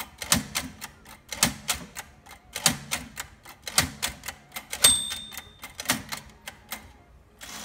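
1964 Sears Celebrity manual typewriter clearing its tab stops: the tab key and tab-clear key pressed in turn, the carriage jumping to each stop with a sharp clack about once a second. About five seconds in the typewriter's bell rings once.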